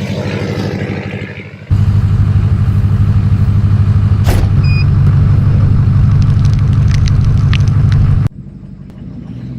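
A vehicle's engine running loud under load as it pulls on a strap tied to a dug-out tree stump to rip it from the ground; its pitch steps up about halfway through. The sound starts and stops abruptly, once near the start and once near the end.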